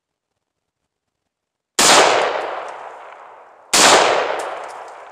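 Two shots from a scoped rifle, about two seconds apart, each followed by a long fading tail.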